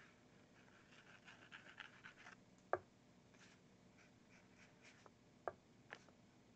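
Faint scratching of a fine paintbrush stroking acrylic paint onto a small canvas panel: a quick run of short strokes, then a few sharp taps, the loudest about three seconds in.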